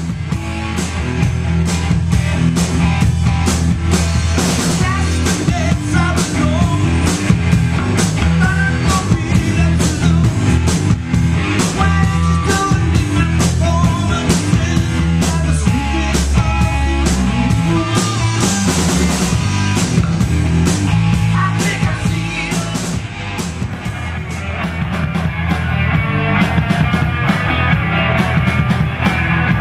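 Live rock band playing: electric guitars, bass guitar and a drum kit with a steady driving beat. The band drops back briefly about two-thirds through, then picks up again.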